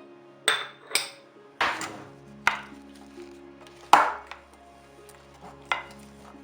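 Kitchenware being handled: about six sharp knocks and clatters of dishes or utensils, one a longer scrape about one and a half seconds in, the loudest about four seconds in, over soft background music.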